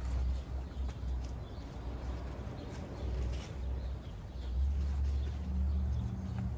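Wind buffeting the microphone: a low, uneven rumble that swells about four and a half seconds in.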